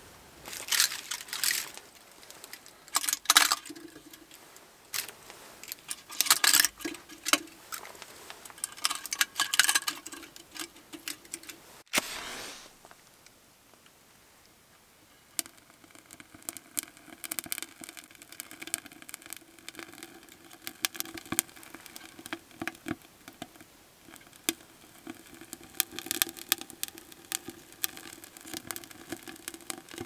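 Clicks and rustles of a stainless wood-fired samovar being handled and its firebox loaded, then a match struck, and fir cones crackling as they catch fire in the samovar's firebox.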